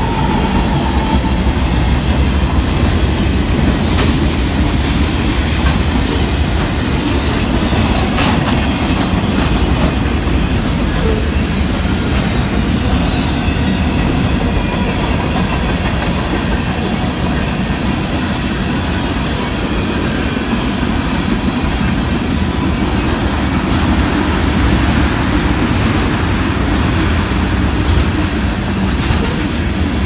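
Union Pacific manifest freight train passing at a grade crossing: a steady, loud rumble of steel wheels on the rails as the locomotive and then the freight cars roll by.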